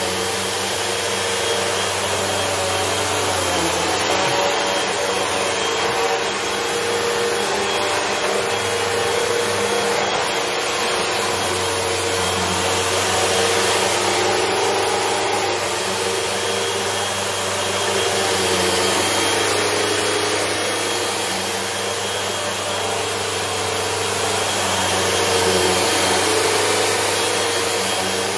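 Upright bagless vacuum cleaner running steadily as it is pushed back and forth over a rug, with a thin steady whine over the motor's rush and the level swelling and easing slightly with the strokes.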